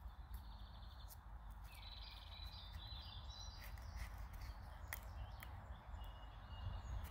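A knife whittling a small wooden stick, making a few sharp faint clicks as the blade bites. Birds chirp in short trills over a steady outdoor hiss and low rumble.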